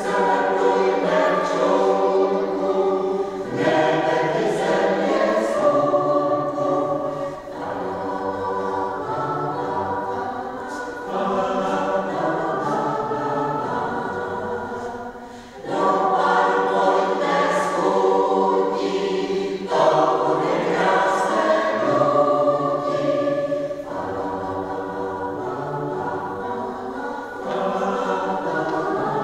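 Mixed choir of men's and women's voices singing in parts, holding chords in phrases of a few seconds with short breaks between them.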